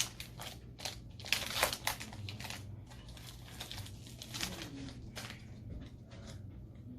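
Foil wrapper of a Pokémon booster pack crinkling as it is handled, in quick crackling rustles that thin out after about two and a half seconds.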